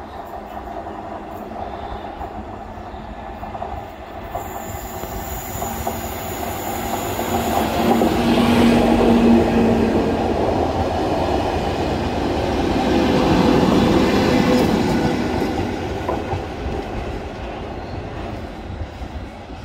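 A Network Rail engineering train, with a locomotive at each end, passes close by on the rails. It grows louder as it comes in, is loudest twice (as each locomotive goes by), then fades as it draws away.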